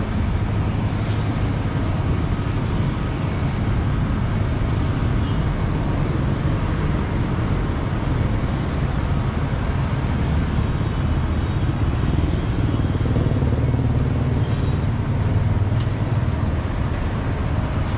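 Steady city street traffic noise: a low rumble of vehicles on the road, growing a little louder a few seconds before the end.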